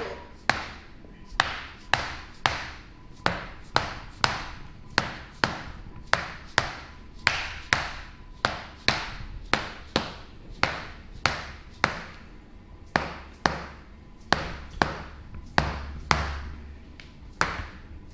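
Rapid, evenly spaced percussive strikes on a patient's back during a chiropractic adjustment, about two sharp knocks a second, each dying away quickly. It is hammering treatment aimed at a stuck pelvis.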